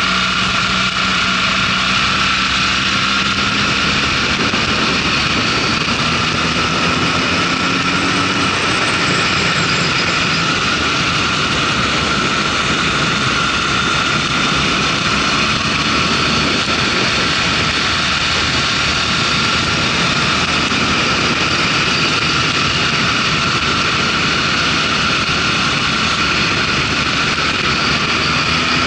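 Motorcycle engine running at road speed under steady, heavy wind and road noise, the engine note rising as the bike accelerates a few seconds in and again near the end.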